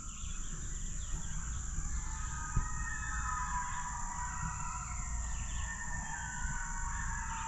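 A distant group of coyotes howling, several wavering voices overlapping, starting about a second and a half in. Under them runs a steady high drone of insects.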